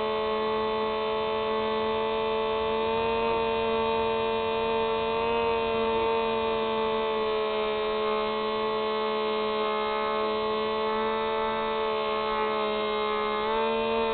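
Hubsan H301F Spy Hawk's electric motor and propeller running at steady throttle, a constant droning whine picked up by the plane's own onboard camera, its pitch wavering a little and rising briefly near the end.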